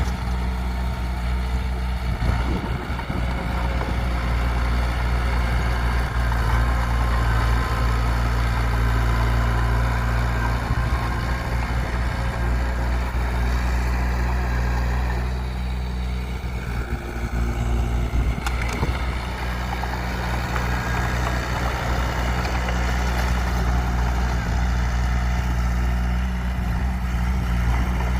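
Heavy diesel engine of an earthmoving machine running steadily, with an even low hum throughout.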